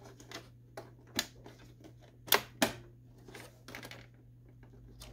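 Scattered sharp plastic clicks and taps from a printer's paper pickup roller assembly being unclipped and pulled free by hand. Two clicks close together about halfway through are the loudest.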